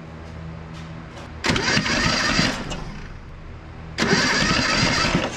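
Starter motor cranking the 1977 Datsun B210's four-cylinder engine in two bursts of about a second each, without firing, during a wet compression test on cylinder one.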